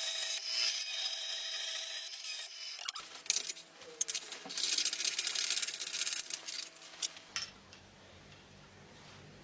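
Abrasive rubbing and scraping strokes, as in filing or sanding work on vise parts. The sound is steady for about three seconds, breaks into irregular strokes and clicks, and stops about seven seconds in, leaving a faint low hum.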